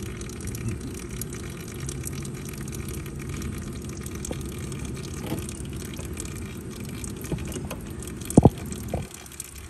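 Engine oil pouring in a steady thin stream from the oil drain valve under the sump of a Continental IO-240 aircraft engine. A sharp knock sounds once about eight seconds in.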